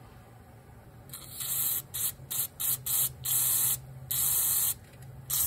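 Aerosol carburetor cleaner hissing through a red extension straw into a carburetor pilot jet to flush it out. It comes in about seven short squirts, then a longer steady spray near the end.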